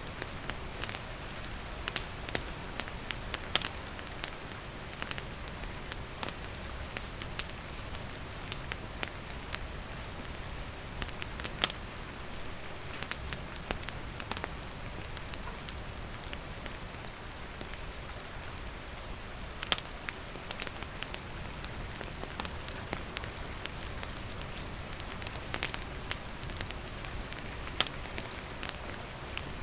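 Steady rain falling, with a wood campfire crackling and giving off sharp pops at irregular moments.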